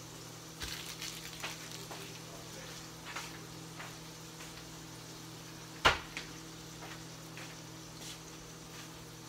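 Bagel halves toasting in a skillet, a faint sizzle with scattered small crackles over a steady hum. One sharp knock about six seconds in.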